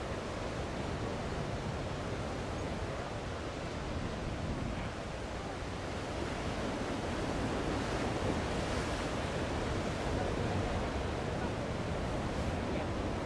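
Storm surf: the steady rushing wash of large breaking ocean waves, mixed with a strong wind buffeting the microphone. It swells somewhat louder a little past halfway.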